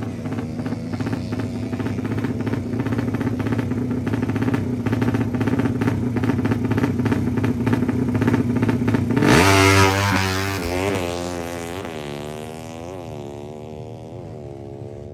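Drag-race motorcycle engines held at high, steady revs, then a sudden loud surge about nine seconds in as they launch. The sound then fades with repeated rises and falls in pitch, like gear changes as the bikes pull away.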